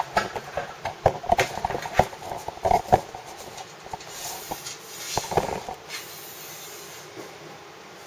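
Camera handling noise: close knocks, clicks and rustling for the first few seconds, fading to a steady low hiss.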